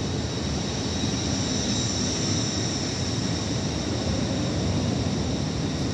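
Hull Trains Class 802 train rolling along the platform: a steady low rumble of wheels on rail with a steady high whine over it.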